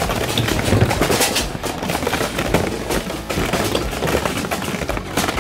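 Steel plate armour clanking and rattling in a rapid, dense run of sharp metallic knocks as the wearer moves in the full suit.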